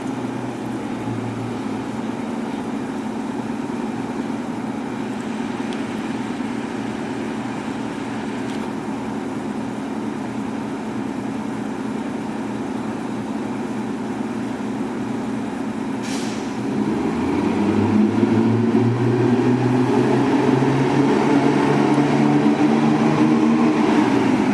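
GMC RTS transit bus's Detroit Diesel 6V92 two-stroke V6 diesel running steadily. About seventeen seconds in, the engine grows louder and its note climbs slowly as it revs up under power. A brief hiss comes just before that.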